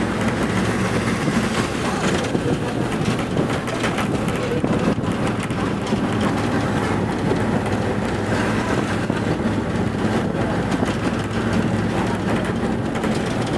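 Running noise of a moving vehicle heard from inside the cabin: a steady low drone with rattles and scattered clicks.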